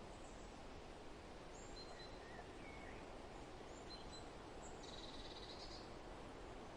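Forest birds calling over a steady wind rustle: scattered short high chirps and whistles, with a brief buzzy trill about five seconds in.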